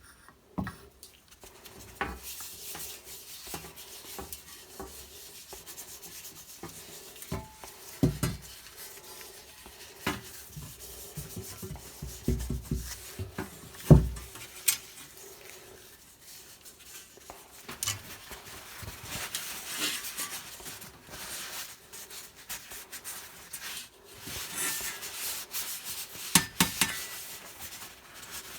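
Hand rubbing and scraping at an uneven pace, with scattered knocks, the loudest about halfway through, over a faint steady hum.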